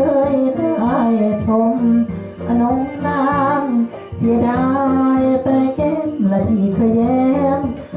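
A hoarse voice singing lae, the Thai ornamented chanted-song style, in long held notes that waver and slide in pitch, with short breaks between phrases.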